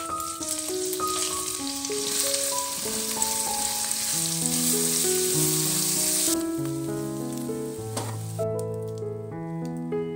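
Hot oil sizzling as rawon spice paste, shallots and garlic fry in a wok, stirred with a silicone spatula. The sizzling cuts off abruptly about six seconds in, leaving only the background music with its single notes.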